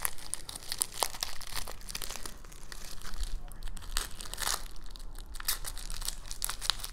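Plastic bubble wrap crinkling in the hands as it is unwrapped from a small item: an uneven run of quick crackles with some tearing.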